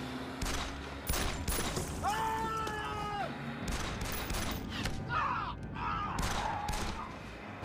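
Handgun shots fired back and forth in a gunfight, about ten sharp cracks at an uneven pace over several seconds. A long held high-pitched sound runs for about a second, starting about two seconds in.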